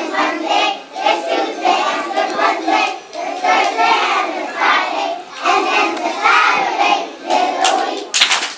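A group of young children singing a song together; about eight seconds in, the singing gives way to hand clapping.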